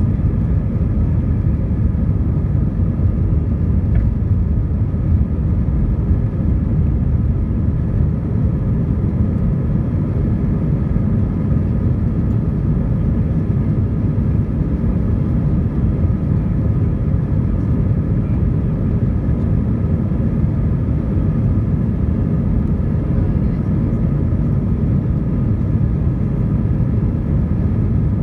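Airbus A320 cabin noise during the climb after takeoff, heard from inside the cabin: the jet engines and airflow make a steady, loud low rumble, with a few faint steady whining tones above it.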